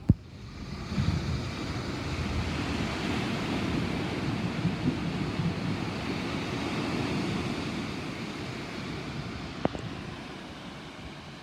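A long roll of thunder from a thunderstorm, building up about a second in and then rumbling on and slowly dying away.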